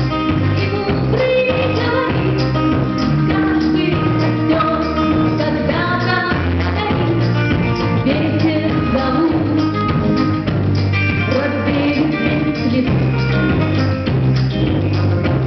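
Rock song with singing over electric guitar and a steady drum beat.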